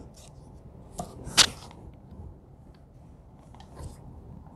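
Workbench handling sounds: a few short, sharp knocks and clicks, the loudest about a second and a half in, as a small wooden block is set down on the wooden bench and a cordless drill is handled.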